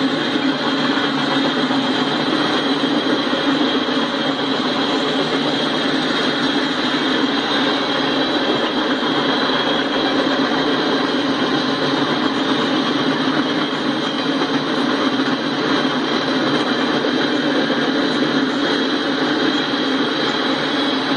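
Freight train boxcars and tank cars rolling steadily past, a continuous noise of wheels on rail.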